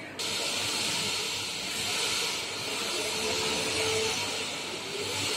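Steady, high hiss that starts abruptly just after the start and carries on evenly.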